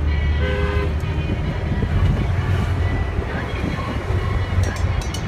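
Steady low engine and road rumble of a moving vehicle, heard from inside it. A short horn blast sounds about half a second in.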